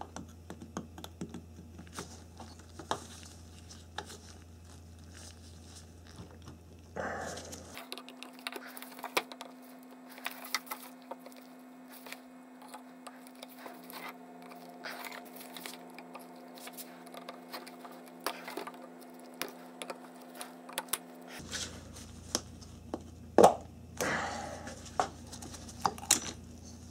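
Irregular small clicks, scrapes and knocks of metal being worked as the staked tabs on a radiator cooling fan motor's rear end cap are bent outward and the cap is pried off, with a few louder knocks near the end.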